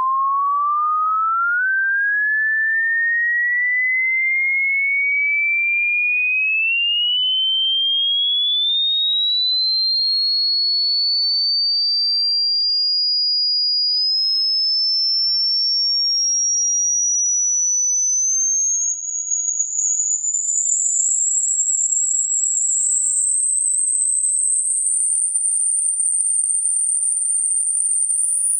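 Hearing-test tone: a single pure tone rising slowly and steadily in pitch, from a mid whistle up to a very high, thin pitch.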